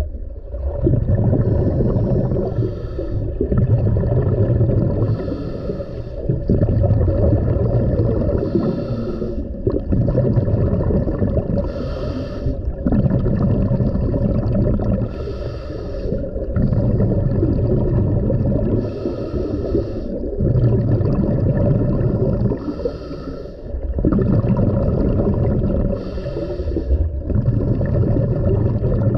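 Scuba diver breathing through a regulator underwater: a short hissing inhale every three to four seconds, each followed by a longer rumbling, bubbling exhale.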